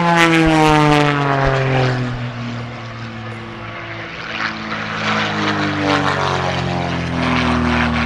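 Propeller-driven aerobatic airplane flying past. Its engine and propeller drone falls in pitch as it goes by in the first few seconds, then rises again as it comes back around near the end.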